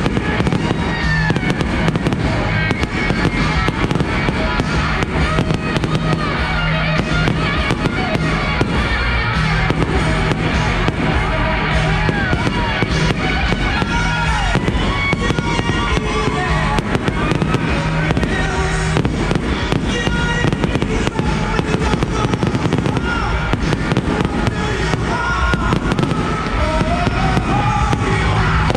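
Fireworks display: a continuous run of shell bursts, bangs and crackling, with short whistles gliding up and down in pitch, over a music soundtrack.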